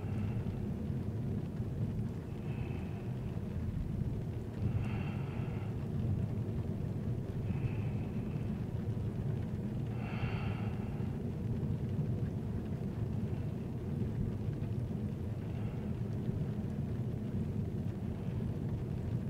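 Steady low road rumble of a van heard from inside, the engine and tyres going at a constant speed. Soft breaths recur about every two and a half seconds over the rumble.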